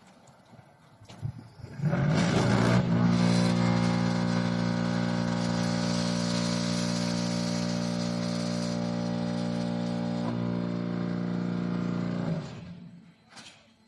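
Concrete block making machine running: it starts abruptly about two seconds in with a brief rush of noise, runs with a steady low hum for about ten seconds, then winds down near the end.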